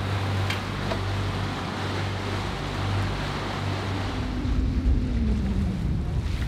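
Catamaran under way: a steady engine drone with water rushing in the wake. About two-thirds of the way through, wind rumbling on the microphone takes over.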